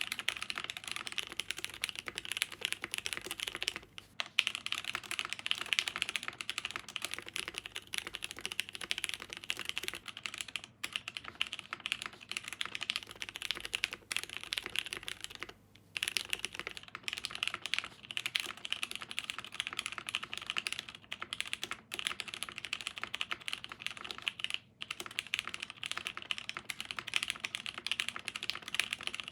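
Fast, continuous typing on a Geonworks Frog TKL mechanical keyboard with unlubed Boba U4T tactile switches on a POM plate and GMK keycaps. The keystrokes run in a dense stream with three short pauses, about four, fifteen and twenty-five seconds in.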